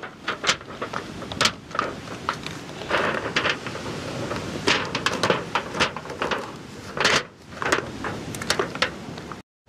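Aluminium foil crinkling and crackling as it is pressed down and folded around the rim of a metal baking tray, in irregular bursts of small crackles.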